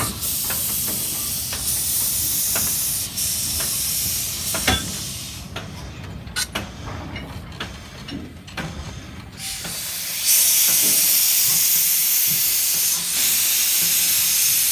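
Steam hissing loudly from a Baldwin narrow gauge steam locomotive as it shunts. In a quieter stretch in the middle the hiss drops away and several sharp clanks and knocks are heard, then the loud hiss starts again about two-thirds of the way through.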